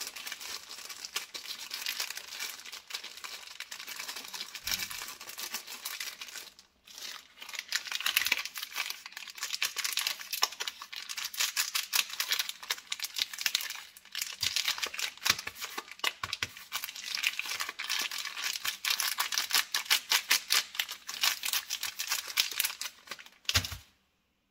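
Plastic chocolate-bar wrappers crinkling as fingers squeeze and rub them: a dense, fine crackle with a short pause about seven seconds in, stopping near the end.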